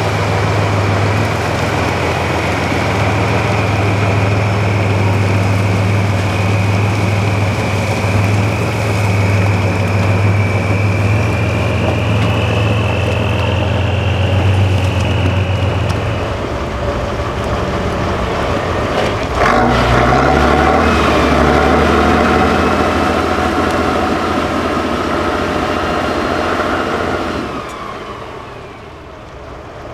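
Diesel engine of an 8x8 trial truck labouring over rock, with a steady high whine over it for the first half. About two-thirds of the way in there is a sharp knock, and the engine then runs louder and higher for several seconds before dropping back near the end.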